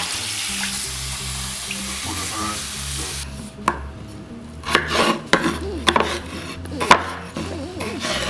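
Kitchen work sounds: a steady hiss for about three seconds that cuts off suddenly, then a run of sharp, irregular knocks and clatter, a knife and utensils striking a cutting board.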